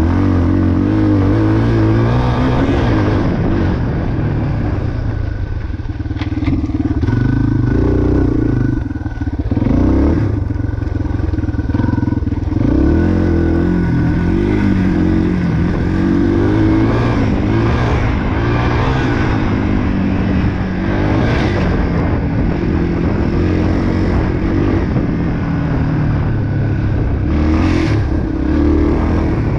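2022 Yamaha TT-R230's air-cooled single-cylinder four-stroke engine, heard from on the bike while it is ridden hard along a dirt trail. The engine pitch climbs and drops again and again with the throttle and gear changes, with brief backing-off about six and nine seconds in.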